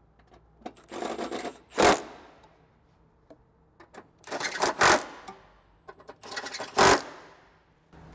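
Cordless impact wrench (rattle gun) running airbox bolts down in three short bursts of rapid hammering, each louder at its end.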